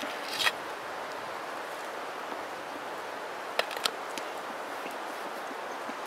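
Steady outdoor background hiss. Over it come a few sharp, crisp clicks and crackles from the pie-iron-toasted sandwich being handled and bitten into: two near the start and a quick cluster about three and a half seconds in.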